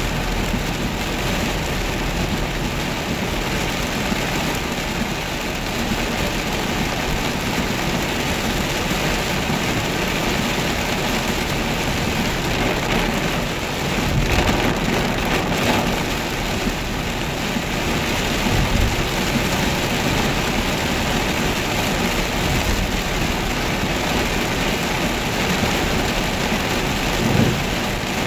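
Rain pelting a moving car's roof and windshield, mixed with tyres hissing through water on the road and the engine running low underneath. It is a steady wash of noise that swells a little around halfway.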